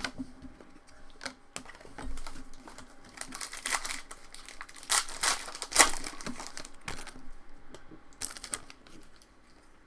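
Foil trading-card pack wrappers crinkling and tearing as packs are ripped open, in several short bursts with light clicks between them.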